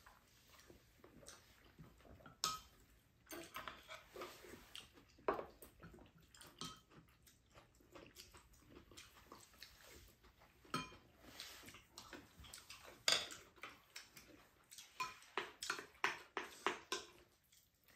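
Spoons and chopsticks clinking and scraping against ceramic bowls as two people eat, with chewing in between. The clinks come irregularly, with a quick run of them near the end.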